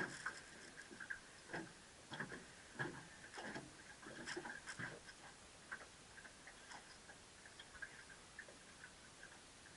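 Fishing reel clicking faintly and irregularly while a hooked redfish pulls against the bent rod; the clicks come thick for about five seconds, then thin out.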